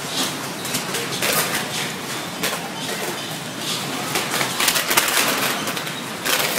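Irregular rattling and clattering of store shelving and merchandise shaken by the earthquake, a dense stream of small sharp knocks with no steady tone.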